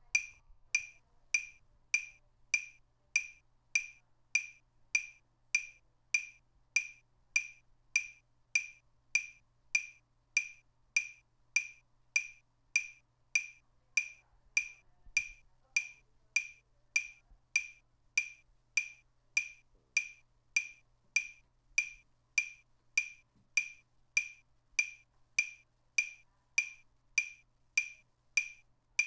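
Metronome click track: a short, high, woodblock-like tick repeating at a perfectly steady pace of about one and a half clicks a second.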